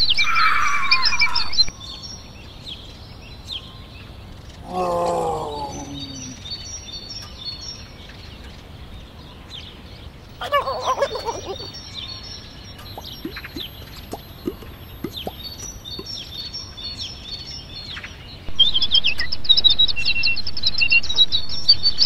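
Birds chirping and twittering, many short high calls. They are louder at the start and over the last few seconds. Two short, lower sliding calls come about five and eleven seconds in.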